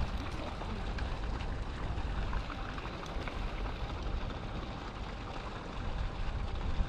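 Wind rumbling on the microphone over a steady hiss of outdoor noise, with a few faint ticks.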